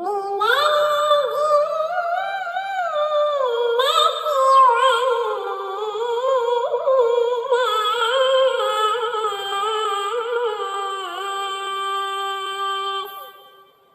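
A single high-pitched voice chanting a Quranic recitation in melodic maqam style, with long ornamented, wavering notes. It settles on one held note near the end and then stops.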